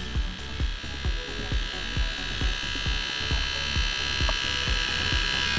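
Small electric motor of an antique mechanical RC helicopter gyroscope spinning its flywheel: a steady high whine over a fast, uneven rattle.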